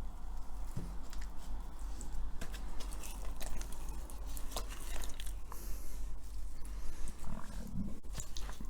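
Wet squelching and light clicks of spice-marinated raw chicken pieces being handled and laid into a tagine dish, over a low steady hum.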